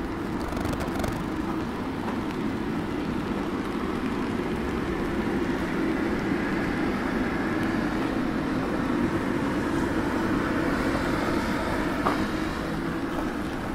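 Steady outdoor urban background noise: a low hum and hiss like distant traffic, swelling a little in the middle and easing near the end.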